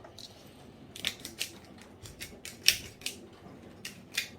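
A run of irregular sharp clicks and ticks, about a dozen, with the loudest one about two-thirds of the way through.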